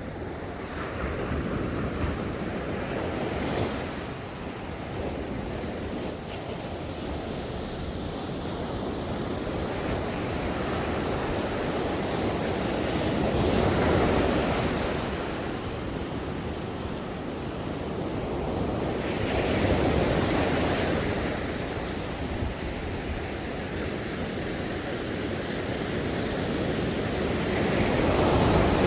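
Ocean waves breaking and washing on a shore, a steady rush that swells to a peak every several seconds, the loudest swells about halfway through and near the end.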